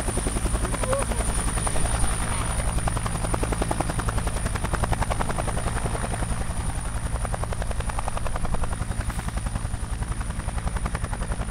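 Multirotor drone's propellers buzzing steadily as it hovers overhead with a box slung beneath it on a rope, with a thin high whine over the buzz. It drops a little in level about nine seconds in.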